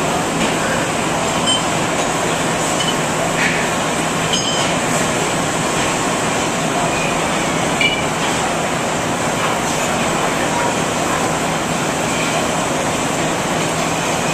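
Arc welding: the arc crackling and hissing steadily as a bead is run, with scattered small pops.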